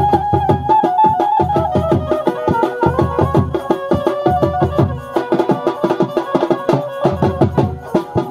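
Traditional Chhattisgarhi wedding band music: fast, driving drumming with deep thumps under a high, held melody line that steps down in pitch and climbs again.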